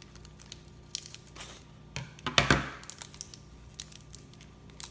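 Plastic toy packaging being handled and opened: scattered clicks and crinkling, with a louder rustle about halfway through.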